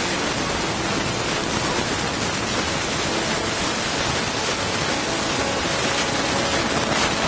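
A loud, steady hiss of noise swamps the recording. Faint pitched tones of the band's sound are just audible beneath it. It is a faulty recording whose sound is hosed.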